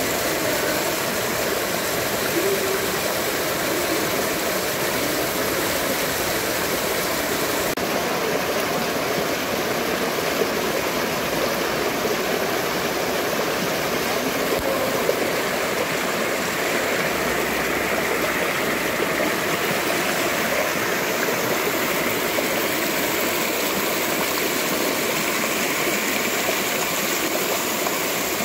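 Small rocky stream rushing and splashing as it cascades between boulders, a steady, even sound of running water.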